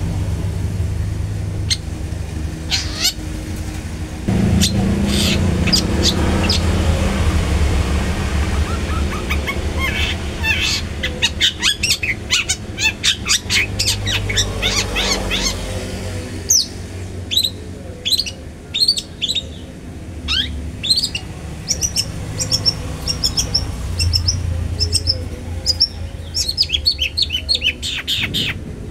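Long-tailed shrike calling: scattered notes at first, then fast runs of notes from about a third of the way in, then separate short high chirps repeated through the second half. A steady low rumble lies under it.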